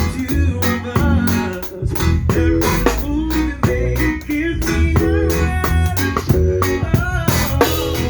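A band playing live: guitar and bass guitar over a steady drum beat.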